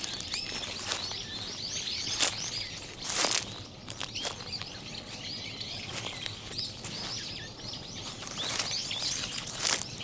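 Many small birds chirping and twittering without a break. A few brief dry rustles of footsteps on fallen leaves come about two, three and four seconds in, and again near the end.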